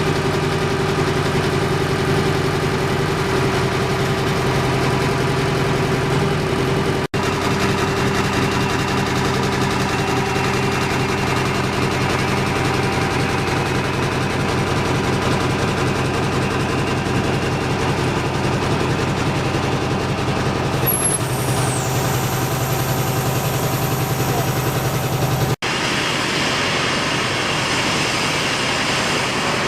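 Engines running steadily with a constant low hum, the sound changing abruptly about seven seconds in and again near the end.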